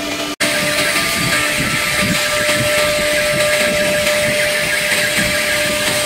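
Steady machine noise from a CNC nesting router and its equipment running: a continuous hiss with a steady hum, broken by a very short dropout near the start.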